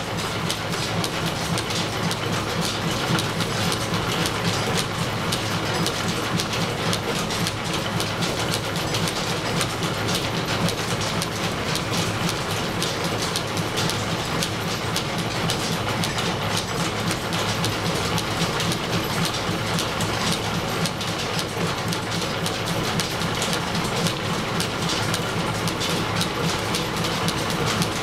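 Old belt-driven milling machine running while it cuts gear teeth, with a steady, dense, rapid clatter from the cutter, gearing and drive.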